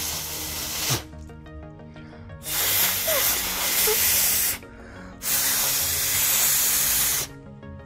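Person blowing hard by mouth three times, each a long hiss of breath lasting about two seconds, to blow isopropyl alcohol out of a small hole in a Samsung Galaxy S22 Ultra's frame.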